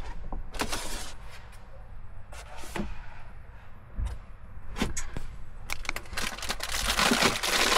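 Food containers and packets being moved about on cupboard shelves: scattered light knocks and clicks, with plastic packaging crinkling and rustling near the end.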